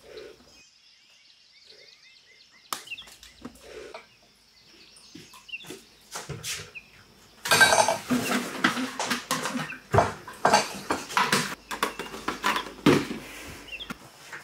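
Kitchen clatter of breakfast being handled: a spoon and bowl knocking on the counter and the cereal box being moved. It is faint and sparse at first, with a few small bird chirps, and turns into busy, loud clattering about halfway through.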